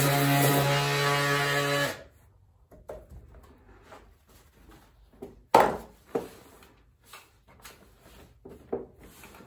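Small handheld electric mini sander running with a steady whine, switched off about two seconds in. Then light knocks and taps of handling, with one sharp knock a little past the middle.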